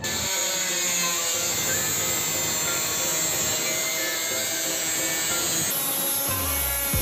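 Handheld Black+Decker angle grinder with an abrasive disc grinding the rusted steel edge of a pickup's cabin panel, a steady loud grinding that starts abruptly and changes tone near the end.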